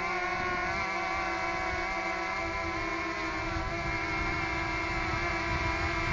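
DJI Mavic Mini quadcopter hovering, its propellers giving a steady buzz of several tones that waver slightly in pitch, with gusty wind rumbling on the microphone.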